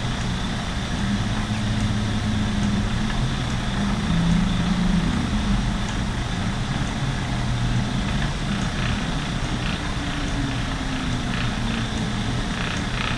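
Lendrum spinning wheel running fast on its small high-speed flyer: a steady whirring hum with a slowly wavering low pitch, and a few faint light clicks now and then.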